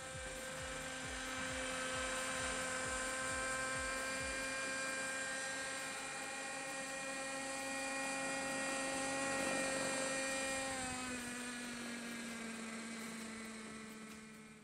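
Nitro RC helicopter's glow-fuel two-stroke engine running at a steady high-pitched whine as it flies low. The pitch steps down slightly about eleven seconds in, and the sound fades out near the end.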